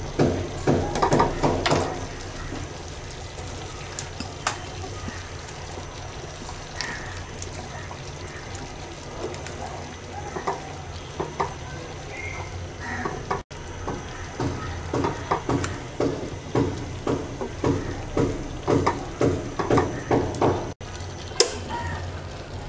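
Spoon stirring thick black gram (mashkalai) dal in a cooking pot, with runs of quick repeated scraping strokes over a steady low hum.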